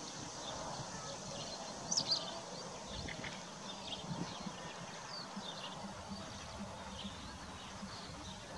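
Horses grazing close by, cropping and chewing grass, with birds chirping in the background and one louder chirp about two seconds in.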